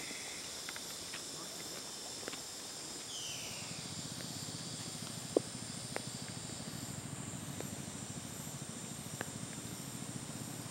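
Steady high buzzing of tropical forest insects, with a very high note pulsing about twice a second. A short falling call sounds about three seconds in, and scattered light clicks come through. From about four seconds in, a low rustling rumble joins.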